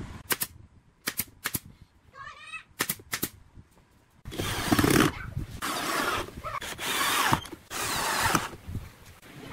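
A cordless drill bores into the wooden base with a long bit, running in four long bursts over the second half. Before that come a few sharp knocks and one short, high call that rises and falls.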